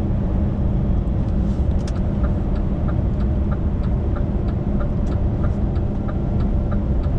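Lorry engine and road rumble, steady inside the cab. From about two seconds in, the turn-signal indicator ticks in an even rhythm, signalling for an exit.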